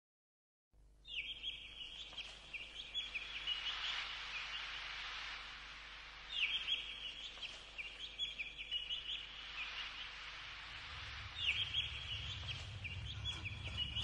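Birds calling in short, stuttering high-pitched bursts, a group about every five seconds, over a soft rushing hiss. A low rumble comes in near the end.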